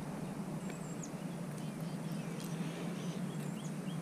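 Quiet pond-side ambience: a steady low hum with scattered short bird chirps and quick high downward-gliding calls, plus a few faint clicks.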